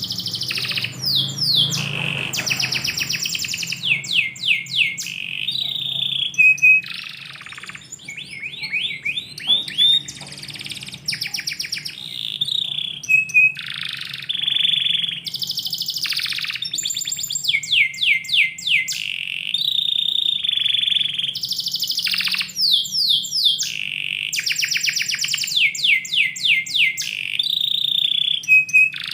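Domestic canary singing a long, nearly continuous song: runs of rapid, repeated falling notes alternating with steady, held whistled notes, over a faint low hum.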